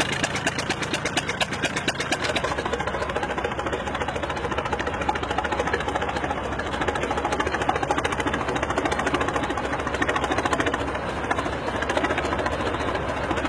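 Vintage farm tractor engines running, with a fast, even knocking beat.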